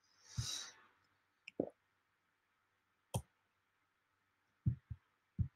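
Faint, sparse clicks and soft taps of a computer being operated: a short hiss about half a second in, a soft tap, one sharp click in the middle and three soft low taps near the end.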